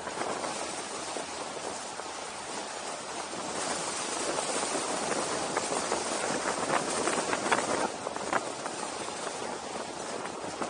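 Wind buffeting the camera microphone as a steady rush of noise, growing louder in the middle, with a few scattered ticks and knocks near the end.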